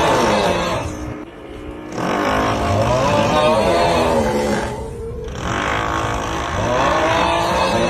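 The 'Uuuuuugghhhhh' snoring meme sound: a long, drawn-out, wavering groaning snore, repeating every few seconds with short breaks, over a drill running steadily in the background.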